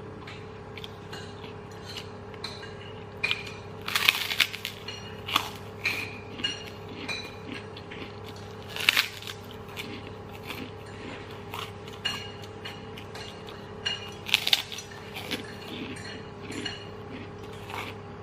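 Crisp Indonesian kerupuk cracker being bitten and chewed: three loud sharp crunches about four, nine and fourteen seconds in, with smaller crackles and mouth clicks between. A steady low hum runs underneath.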